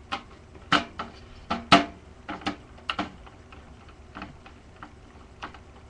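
A screw being driven into a desktop computer case to mount a fan: irregular sharp clicks and taps of the screwdriver and screw against the metal. The loudest clicks come about a second in and again near two seconds in.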